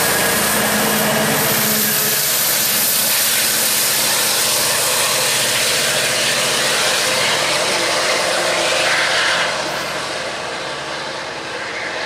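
MP40PH-3C diesel locomotive's EMD 16-710 prime mover working under power as it pushes a passenger train away, with wheels running on the rails. The sound stays loud, then drops off about nine and a half seconds in as the locomotive recedes.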